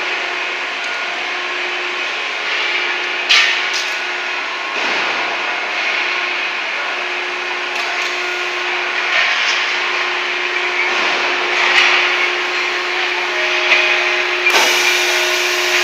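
Truck wheel rim production machinery running: a steady hum over a wash of mechanical noise, with a few short metallic knocks, a sharp one about three seconds in.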